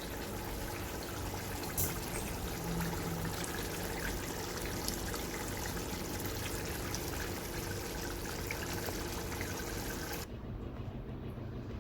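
A steady watery hiss and trickle, with a small click about two seconds in. About ten seconds in it cuts off abruptly, leaving a low hum.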